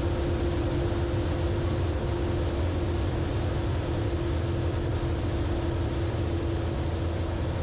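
Zenith CH 650 light sport aircraft's piston engine and propeller running steadily in flight, heard inside the closed-canopy cockpit: an even hum with one steady tone, unchanging throughout.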